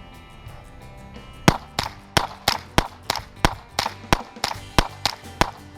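Rapid, evenly paced shots from a .22 rimfire firearm, about three a second, starting about a second and a half in and carrying on without a break. Background music plays underneath.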